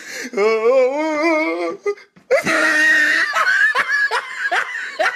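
People laughing: a long wavering drawn-out laugh, a brief pause, then a loud shrill burst of laughter breaking into quick short laughs.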